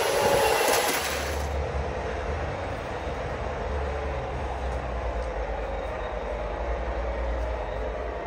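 Sound decoder in an O gauge model InterCity 125 (HST) playing the power car's diesel engine sound through its speaker, with the model's wheels running on the rails. Loudest in the first second as the train passes close, then steadier and more distant, with a constant low hum.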